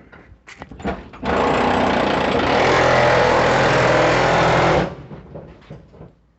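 A motor-driven machine running steadily for about three and a half seconds, starting about a second in and cutting off abruptly.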